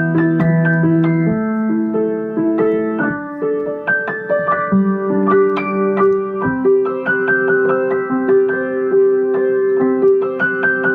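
Solo piano playing a melody over sustained chords, each note struck and left ringing.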